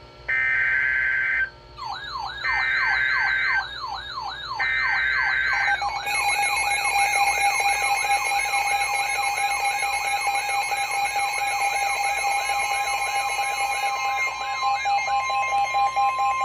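Emergency Alert System header opening a new weather warning: three short bursts of buzzing SAME data tones. These are overlaid by a weather-alert receiver's siren-like alarm that sweeps up in pitch about three times a second. A long steady attention tone follows through the rest.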